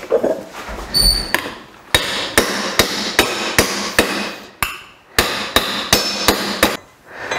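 Repeated hammer blows on a metal exhaust-manifold tube held on a vise anvil, about two to three sharp strikes a second with a short metallic ring. The tube end is being beaten into the D-shape of the cylinder-head port.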